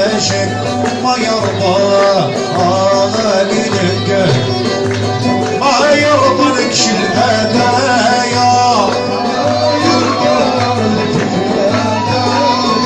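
Live ensemble music: an oud and a violin playing a winding, ornamented melody over a steady low bass.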